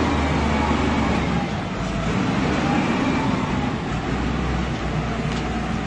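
Diesel engine of a KOBE wheel loader running as the machine drives with its bucket full of rubbish: a steady low drone whose pitch drops a little about two seconds in.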